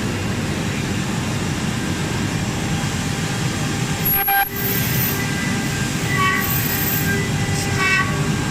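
Steady din of machinery in a large exhibition hall, with a few short high-pitched tones about four, six and eight seconds in.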